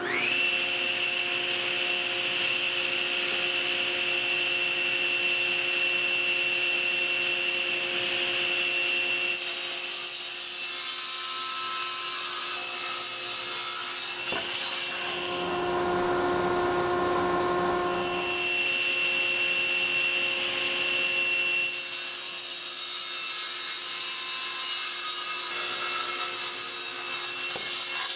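Table saw starting up and running with a steady high whine, ripping a thick two-layer plywood panel along the fence. The cutting noise comes in about ten seconds in for several seconds, and again for the last several seconds: two rip cuts that square the panel's sides parallel.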